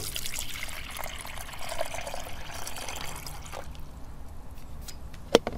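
Water poured from a plastic jug into a plastic travel kettle, running for about three and a half seconds and then stopping. A single sharp click near the end.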